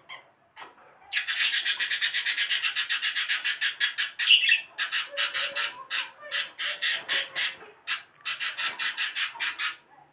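Hand kneading cocoa into soft butter dough in a clay bowl: fast rhythmic rasping rubs, about five a second, in three runs with short pauses between.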